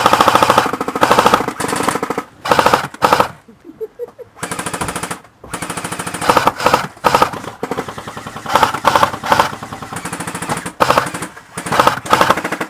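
A&K M249 Para airsoft electric gun firing a run of full-auto bursts, each about a second long with short pauses between them.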